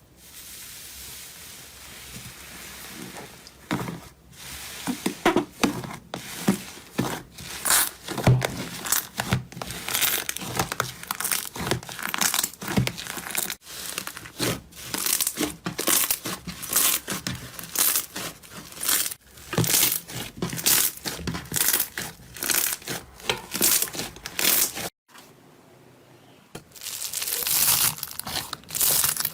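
Slime being squeezed and stretched by hand, making quick crackling, squishing sounds. There is a short pause near the end.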